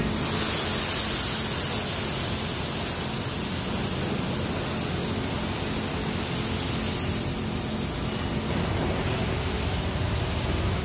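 Self-serve car wash high-pressure wand spraying water: a steady hiss that starts suddenly, with a low rumble underneath.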